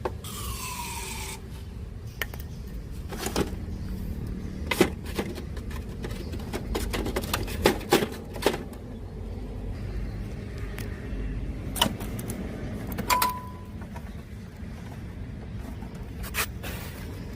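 Scattered clicks and knocks of hands and tools working on a Sharp GF560 radio cassette player, over a steady low hum. A short falling whine comes right at the start, and a brief beep-like tone about two-thirds of the way through.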